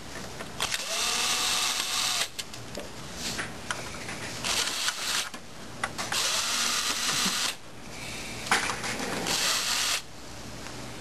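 Electric screwdriver backing out the two screws that hold the rear assembly of a laser printer. It runs in two whirring spells of a couple of seconds each, with clicks and handling of the metal parts between them.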